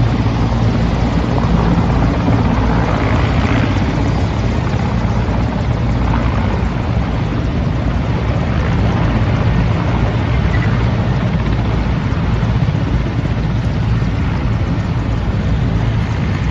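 Large military transport helicopter's rotor and turbine engines running steadily as it comes in to land.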